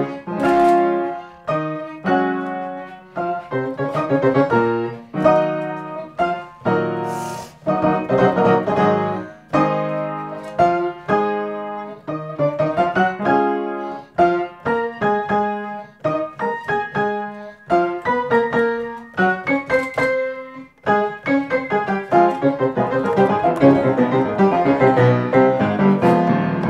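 Grand piano played solo: quick runs of notes and chords at a lively pace, growing fuller and more sustained near the end.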